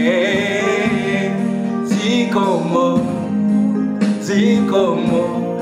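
A man sings a gospel song over electronic keyboard accompaniment, with held chords under his voice. About three seconds in, he sings "Zikomo, zikomo" ("thank you" in Chichewa), twice.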